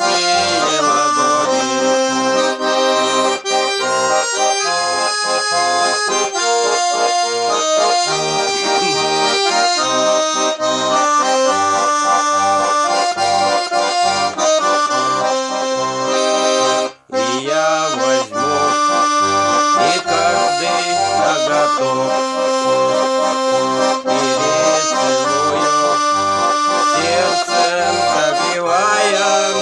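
Russian garmon (button accordion) playing a folk tune: a melody with chords over a steady pulsing bass. There is a brief break about seventeen seconds in.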